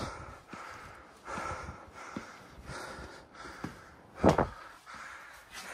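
A person breathing hard while trekking, a rhythmic breath about every second and a half, with one much louder, sharper puff of breath about four seconds in.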